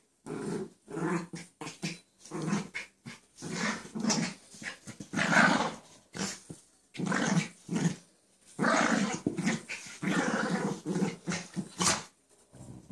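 Two dogs play-fighting, with a long run of playful growls in short, irregular bursts and brief pauses around six and eight seconds in.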